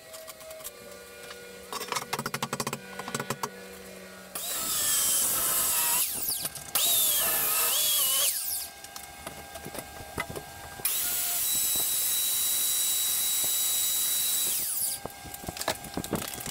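Handheld power tool cutting into cinder block, with clicking and rattling about two seconds in. It runs loudly in two spells, its pitch wavering and dipping under load. After a short lull it runs freely at a steady high pitch for about four seconds, then winds down near the end. Its switch has stuck in the on position, probably from the fine cinder dust.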